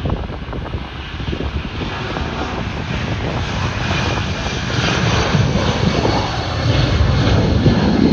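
Boeing 757 jet airliner's engines at takeoff power as it lifts off and climbs out, a steady jet noise that grows gradually louder.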